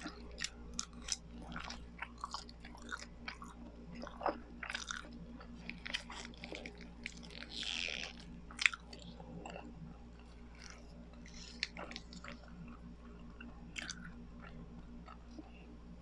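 Close-miked chewing of biko, sticky sweet rice cake: irregular wet, sticky mouth clicks and smacks, the sharpest click a little past halfway, over a faint steady hum.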